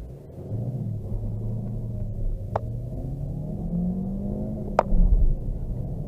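Vauxhall Astra K 1.4-litre turbo petrol engine accelerating hard under full throttle, its pitch climbing steadily and stepping once partway through. Two sharp clicks come through, about two and a half and five seconds in.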